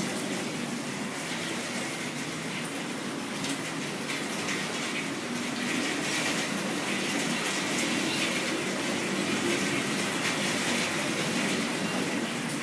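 Heavy storm rain pouring, with floodwater rushing and splashing. It is a steady wash of water sound that grows a little louder past the middle.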